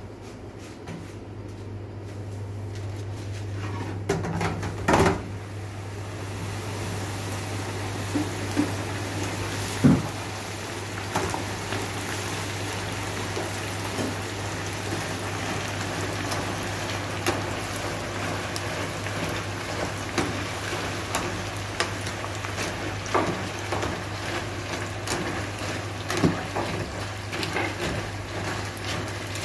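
Tortilla chips deep-frying in a commercial fryer: hot oil sizzles and bubbles with a hiss that builds over the first several seconds and then holds steady. Metal clinks and scrapes come as a spatula stirs the chips in the wire basket, with sharp knocks about five and ten seconds in. A steady low hum runs underneath.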